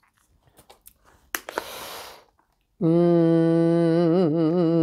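A foil-lined snack pouch rustles briefly as it is pulled open, then a woman sings one long loud note, held steady at first and wavering with vibrato near the end.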